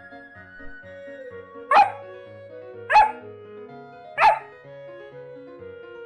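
Yellow Labrador Retriever puppy, about three months old, barking three times, about a second and a quarter apart.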